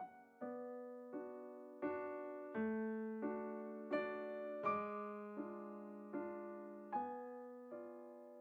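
Slow background piano music: a soft chord struck about every three-quarters of a second, each left to ring and fade.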